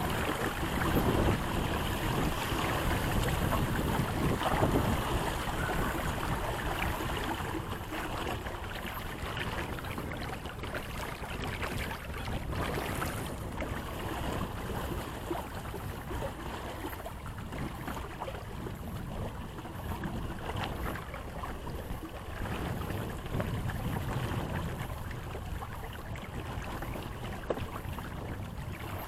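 Wind buffeting the microphone and water rushing along the hull of a small sailboat under way, a steady rumble and hiss that eases gradually over the first several seconds.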